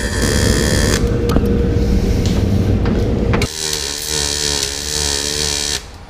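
Loud steady noise for the first few seconds, then a MIG welding arc buzzing and hissing as a fill-bolt bung is welded onto the truck's axle differential housing. The arc cuts off abruptly near the end.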